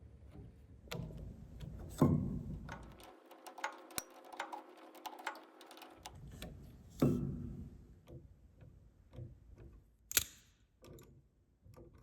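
Irregular clicks and knocks of hands working on an upright piano's mechanism, with a louder thump about two seconds in and again about seven seconds in, and a steady ringing tone in the middle.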